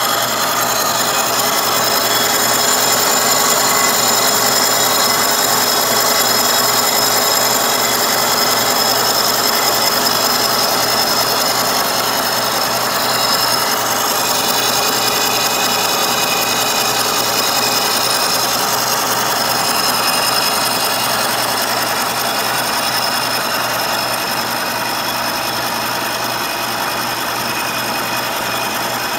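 Carbide-insert face mill on a Kearney & Trecker milling machine taking a 0.020-inch-deep cut across a raw cast iron straight-edge casting. The cut makes a steady, dense sound with several high steady whining tones over it.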